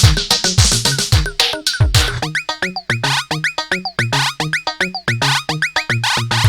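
Indonesian DJ remix dance track: fast drum-machine beat with short synth notes and deep kicks that slide down in pitch.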